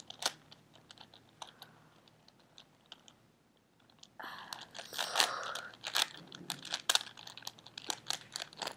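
A plastic 4x4x4 Rubik's cube being turned by hand while its edge pieces are paired: irregular clicks and clacks of the layers snapping round. The turns pause for about two seconds midway, then come in a quicker run from about four seconds in.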